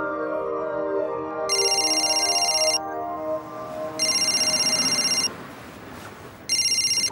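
Telephone ringing with a high electronic trill: three rings of about a second each, the third cut short, as soft background music fades out.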